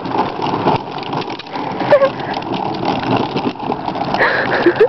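Small plastic ride-on toy tractor moving over pavement, a steady rough rolling and rattling noise. A few short rising squeaks come about two seconds in and again near the end.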